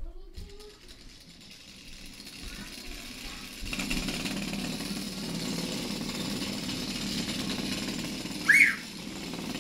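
Small electric motor with a belt-driven eccentric rotor running on a wooden board, the board buzzing and rattling on a tile floor from the rotor's vibration; the rattle grows louder about a third of the way in and stays steady. A brief squeak comes near the end.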